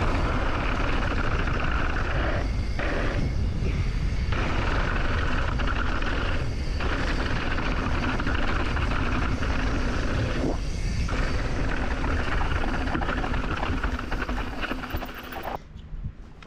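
Mountain bike descending a dirt trail at speed, filmed on an action camera: heavy wind buffeting on the microphone over the rattle and rush of tyres on dirt. The rolling noise drops out briefly a few times and falls away near the end.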